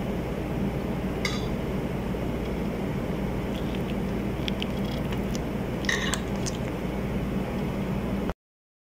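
Steady low background hum with a few faint clicks, about a second in and again around six seconds; the sound cuts off abruptly near the end.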